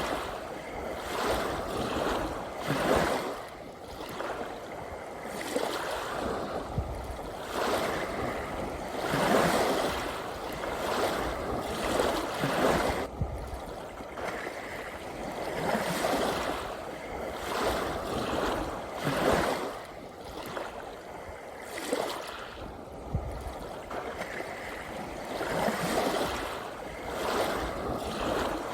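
Small sea waves washing in and out, a rushing swell of water every second or two.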